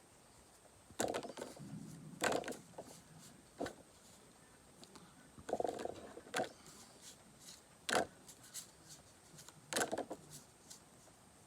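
Pokémon trading cards being handled and sorted by hand: scattered rustles and sharp taps, about six in all, the sharpest about eight seconds in.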